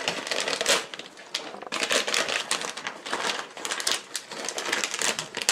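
Plastic packet crinkling and rustling as it is handled, a dense irregular crackle.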